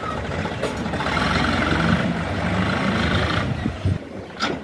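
Mahindra 595 Turbo tractor's diesel engine running as it moves a loaded trailer, getting louder and fuller from about a second in until about three and a half seconds, then easing off. A brief sharp sound near the end.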